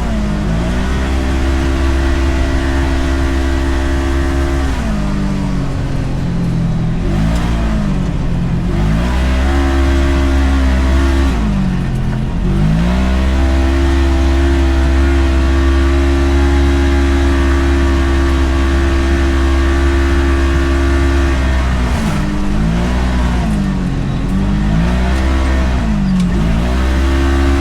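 Side-by-side UTV engine running under load. Its pitch dips and climbs back several times as the throttle is let off and reapplied, holding steady in long stretches between.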